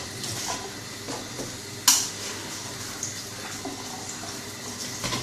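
Kitchen tap running into a stainless steel sink while a clear plastic protein skimmer tube is rinsed under the stream, with one sharp knock about two seconds in.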